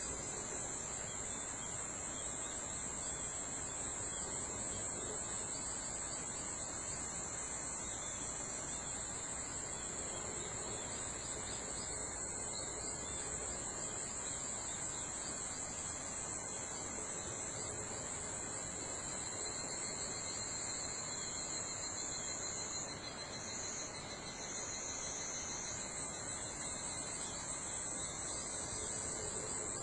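Dense chorus of singing insects: a steady, high-pitched, unbroken drone. A second, lower trill joins about two-thirds of the way in, and the high drone wavers briefly near the end.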